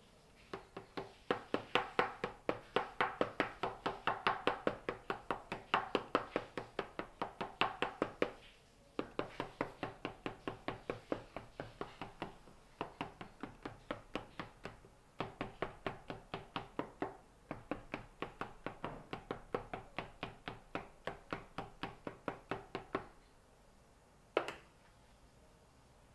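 A spatula clicking rapidly against a cake pan as batter is stirred, about five clicks a second in runs of several seconds with short breaks. One louder single knock comes near the end.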